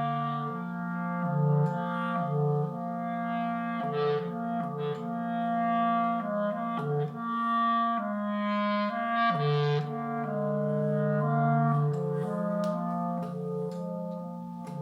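Clarinet improvisation with several clarinet lines layered over one another, sustained notes overlapping and shifting pitch every second or so.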